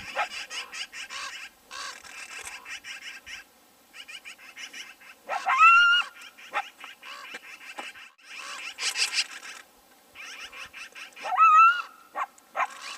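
Coyote calling twice, about five and eleven seconds in: each call rises quickly in pitch, then holds briefly as a short howl. Underneath runs a busy chatter of quick, high yips and squeaks.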